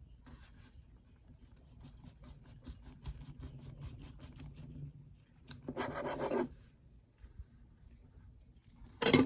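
Knife sawing back and forth through a ball of Play-Doh and clay in quick rasping strokes. A louder scrape comes about six seconds in, and a sharp knock near the end.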